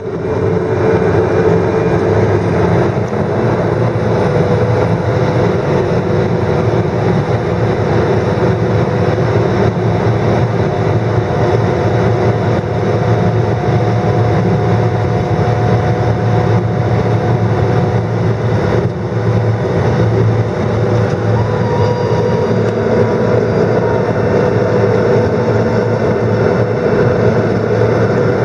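Pilatus single-engine turboprop's Pratt & Whitney PT6A engine running steadily, heard inside the cockpit as a loud, even hum with a steady whine over it.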